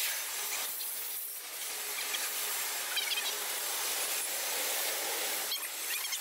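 Double-stack intermodal freight train rolling past, its steel wheels on the rails making a steady rushing noise, with brief high squeals now and then.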